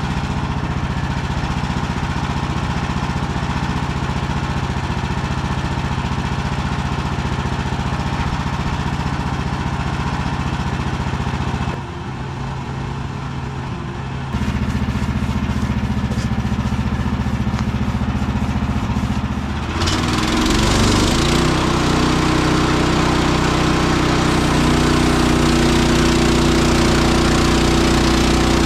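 Gas engine of a Woodland Mills HM130 Max bandsaw mill running steadily. It drops briefly about twelve seconds in and picks up again two seconds later. About twenty seconds in the engine note changes and a hiss comes in over it, the sound of the band blade working through a hard maple log.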